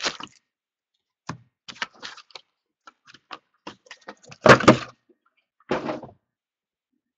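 Cardboard 2016 Donruss Optic Football hobby box being handled: foil card packs scraping and rustling as they come out of the box. About four and a half seconds in comes the loudest sound, a knock of the box on the table, then another bump about a second later.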